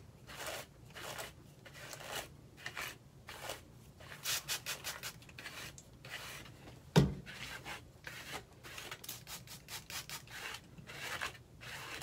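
Quick squirts of a trigger spray bottle misting hair, mixed with a hairbrush rubbing through wet hair in short strokes. A single louder thump comes about seven seconds in.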